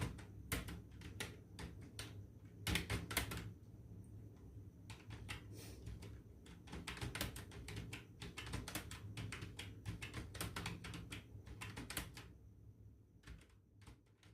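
Computer keyboard typing in fast runs of keystrokes with short pauses between them, at a typing-test pace of about 50 words per minute. A low steady hum sits underneath, and the typing stops shortly before the end.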